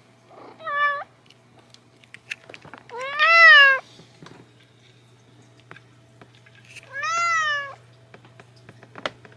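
Domestic cat meowing three times: a short meow, then a long, loud one, then another long one, each rising and then falling in pitch.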